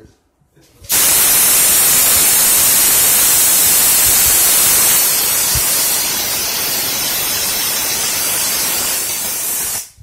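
R-410A refrigerant hissing out of a cylinder through a charging hose: a loud, steady hiss that starts about a second in, eases slightly about halfway and cuts off sharply just before the end.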